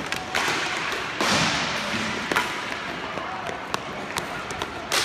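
Inline hockey play: plastic sticks and a puck clicking and clattering on the rink's tile floor, with many sharp taps scattered through over the noise of skate wheels rolling.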